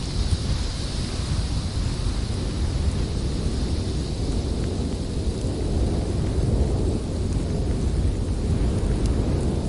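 Blizzard wind blowing hard and without a break, a deep rumble that swells and eases in gusts, with a higher hiss that fades over the first few seconds.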